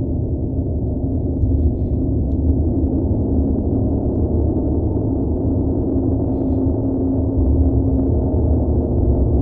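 Tibetan gongs in a continuous, dense low wash of overlapping resonance, with steady humming tones and no separate strikes, growing a little louder in the last few seconds.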